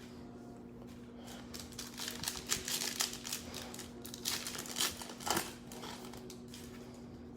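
The wrapper of a Panini Mosaic football card pack being torn open and crinkled: a run of sharp crackles lasting a few seconds, over a faint steady hum.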